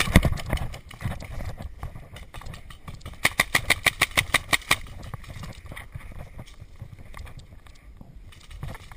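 Paintball marker firing a rapid burst of about a dozen shots, some seven or eight a second. Loud thumps and scuffing at the start come from the player's movement.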